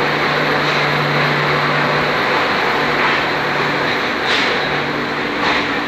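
Passenger train coach rolling slowly into a station platform, heard from inside through an open window: a steady rumble of wheels on rail with a low hum, and a couple of short clicks near the end.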